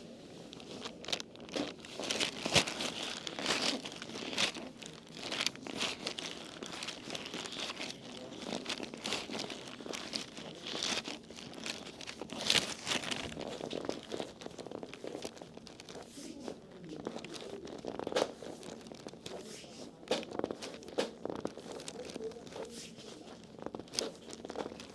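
Massage in progress: irregular rustling and crinkling of hands working over skin and fabric, with scattered sharper crackles.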